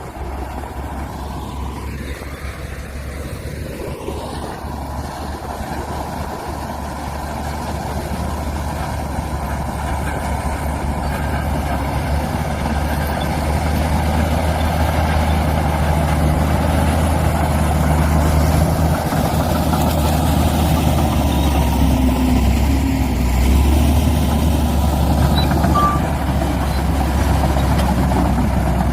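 Heavy diesel engines of a bulldozer and dump truck running steadily, growing louder over the first half.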